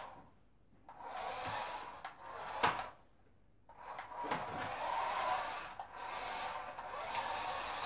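Small battery-powered remote-control toy car driving in bursts of one to two seconds, its electric motor whirring and wheels rolling, with one sharp knock about two and a half seconds in as it hits something.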